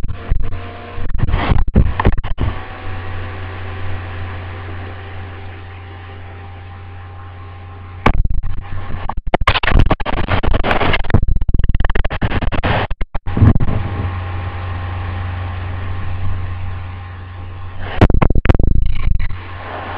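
Handling noise on a handheld camera's microphone: loud scraping, rubbing and knocks as it is pushed against fabric or fur, in two long spells and a short one near the start. A steady hum with several even tones runs underneath.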